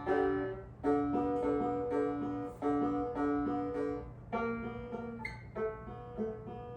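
Ortega Falcon banjo being picked, a slow run of single plucked notes, each ringing briefly before the next, roughly two a second.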